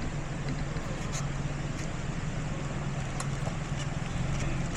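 Truck engine running steadily while driving on an off-road trail, a low hum with road noise and a few sharp clicks and rattles.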